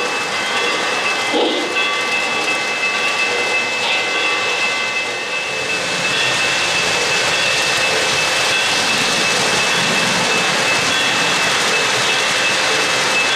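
O-gauge model trains running on three-rail track: a steady rumble and rattle of metal wheels, with a thin steady high whine over it. It becomes smoother and more even about halfway through.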